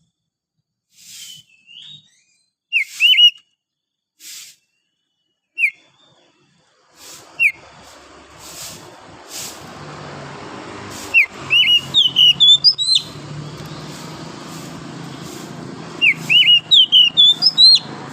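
Oriental magpie-robin singing: loud, short, rising whistled notes, a few at a time at first, then quick runs of several notes twice. A steady background hiss comes in about seven seconds in.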